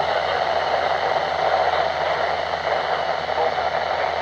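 Steady hiss of radio static from a radio receiver, with no speech or alert tones heard.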